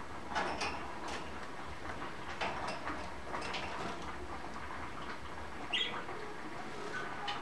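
Budgerigars chirping and chattering softly in short scattered notes and clicks, with one brighter, higher chirp about six seconds in.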